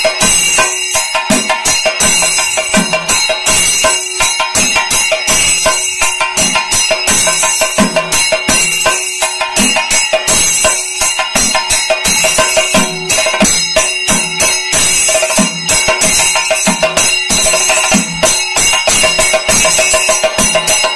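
Kerala temple percussion: two chendas beaten with sticks and an ilathalam (small bronze hand cymbals) keeping the beat, playing Adantha melam. A dense, even run of drum strokes goes over the steady ringing of the cymbals.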